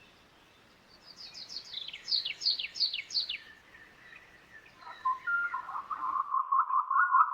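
Bird song: a run of about eight quick, downward-sliding whistled notes. From about five seconds in comes a lower, wavering whistle broken into rapid stutters.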